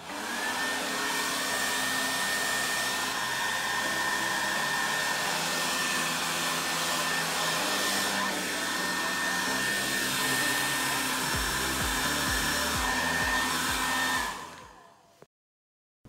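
Hair dryer rigged as a makeshift vacuum cleaner with a narrow tube nozzle, switched on and running steadily with a high whine while it sucks up pencil shavings. It is switched off about 14 seconds in and winds down.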